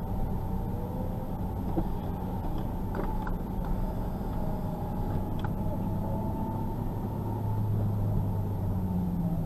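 Nissan 370Z's 3.7-litre VQ37 V6 running steadily at low revs as the car rolls slowly, heard from inside the cabin, with a slight rise in engine note near the end.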